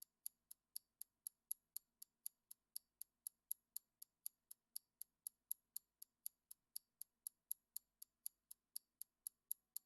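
Faint, steady ticking of a countdown timer sound effect, about four ticks a second, marking the 10 seconds given to answer the question.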